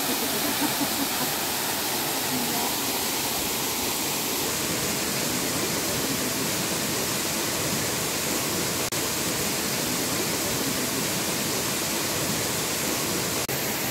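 Waterfall's steady rush of falling water, an even hiss spread across all pitches. It drops out for an instant twice, about nine seconds in and near the end.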